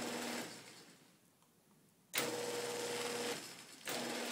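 Genie Pro screw-drive garage door opener motor starting and stopping erratically: a short run at the start, a run of about a second a little after two seconds in, and another starting near the end, its hum higher in the middle run than in the others. The traveler runs in fits and starts with no repeating pattern, a fault that a replacement circuit board and a resistance adjustment did not cure.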